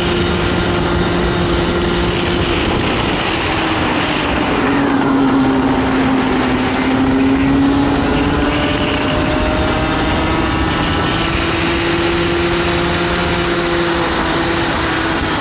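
Comer 50cc two-stroke kart engine running at high revs, heard on board; its pitch drops about four seconds in and climbs back up over the next several seconds. An even rush of wind and road noise runs underneath.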